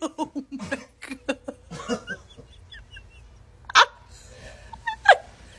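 A person laughing hard and breathlessly: a fast run of short laughing pulses for about two seconds, then quieter wheezing. Near the end come two short, sharp squeals, the second falling in pitch.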